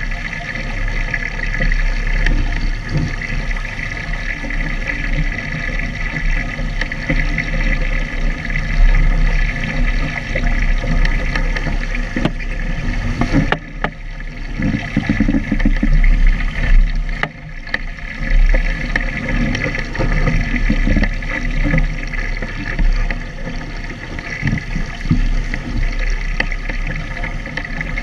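Water rushing and splashing along the hull of a Phantom single-handed sailing dinghy sailing fast in gusty wind, with wind buffeting the boat-mounted camera's microphone. The noise is loud and unbroken, except for two short lulls around the middle.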